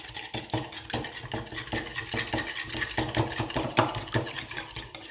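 Wire balloon whisk beating eggs and milk into an egg wash in a bowl: a quick, even run of clicking strokes of the wires against the bowl.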